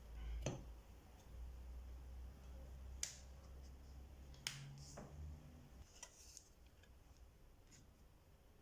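Faint, sharp clicks and taps, about five of them spread over several seconds, over a low hum.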